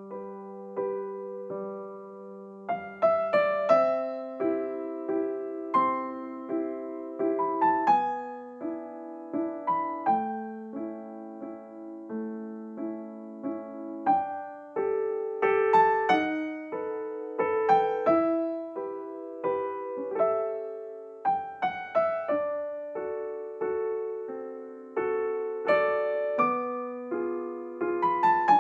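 Background piano music: a gentle melody of struck notes that ring and fade, over a changing low line.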